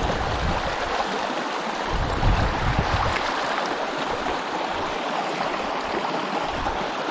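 Shallow mountain stream rushing and splashing over rocks in small rapids, a steady rush of water, with brief low rumbles on the microphone near the start and again about two to three seconds in.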